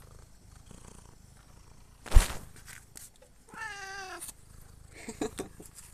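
A domestic cat gives one wavering meow about halfway through. Before it there is a single sharp thump, the loudest sound, and a few light clicks follow near the end.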